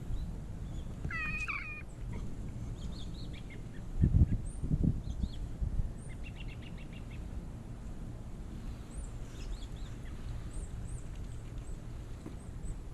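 Short chirping bird calls, some in quick trills, over a steady low rumble, with two loud low thumps about four seconds in.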